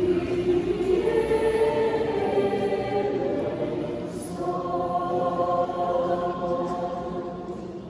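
Church choir singing long held notes, the phrase dying away near the end.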